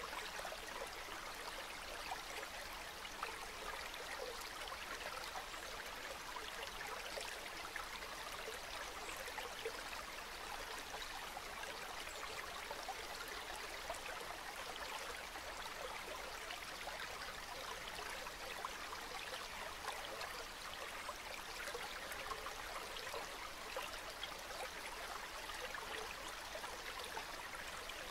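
River water flowing calmly downstream: a steady, even sound of running water with no change throughout.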